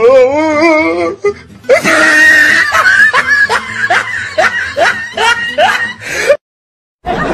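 Background music track: a wavering, vibrato note at first, then a rhythmic run of short upward-sliding notes over a beat, cutting off abruptly to silence near the end.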